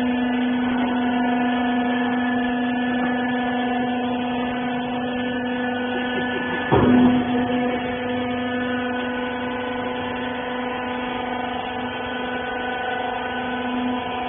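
Hydraulic rag baler's electric motor and hydraulic pump running with a steady, even hum, broken once about seven seconds in by a short loud clunk as the note briefly dips.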